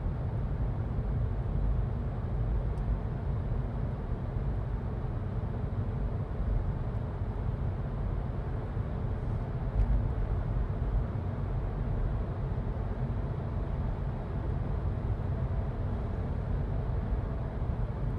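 Car driving on the highway, heard from inside the cabin: a steady low rumble of road and engine noise.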